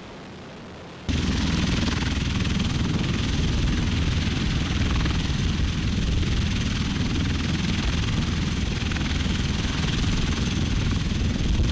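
Tiltrotor aircraft engines and rotors running close by: a steady, loud low rumble and rushing noise with a thin high turbine whine, cutting in suddenly about a second in after a quieter start.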